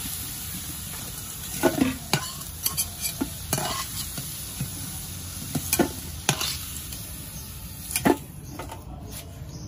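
Hot oil sizzling in a karahi as fried potato pieces are lifted out with a metal spatula, which scrapes and clinks against the pan and a steel bowl about seven times. The sizzle thins out near the end as the pan is emptied.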